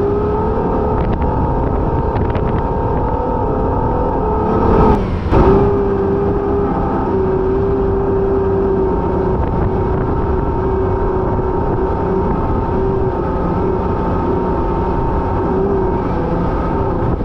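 Holden Adventra's Alloytec V6 engine running steadily under load while driving through soft sand, its pitch holding fairly level with slight rises and dips. A brief loud rush of noise about five seconds in.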